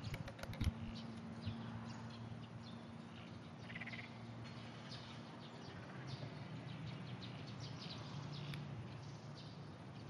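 Frogs calling faintly at a distance from a duckweed-covered pond, short chirping calls scattered throughout. A few sharp clicks sound in the first second.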